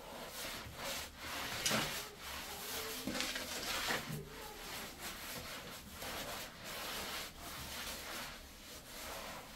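Repeated rough rubbing or scraping strokes, irregular, roughly one every half second to a second.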